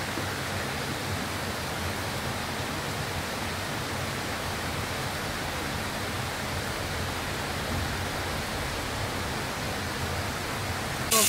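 Steady rushing of flowing stream water, an even hiss with no breaks or rhythm. At the very end a louder hiss cuts in suddenly.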